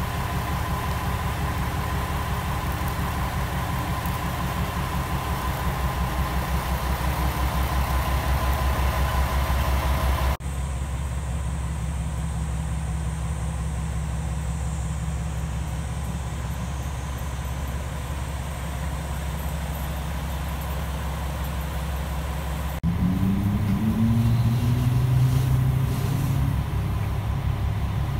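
JR West KiHa 120 diesel railcar engines idling with a steady low rumble. After a cut near the end, heard from inside the railcar, the engine revs up with a rising pitch and grows louder.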